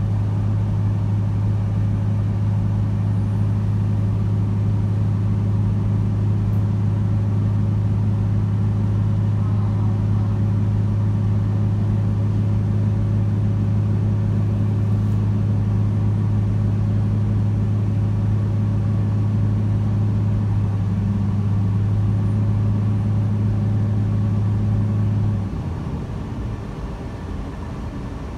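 Cabin noise of a moving Taiwan Railways electric train: a steady, loud low hum over running rumble, which drops away to a quieter rumble near the end.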